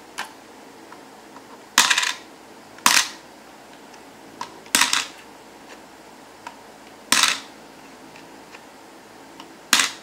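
Coins dropped one at a time through the slot of a LEGO-brick puzzle box, each landing inside with a sharp metallic clatter that rings briefly. There are five clatters, one to two seconds apart, with faint ticks between them as coins are picked up.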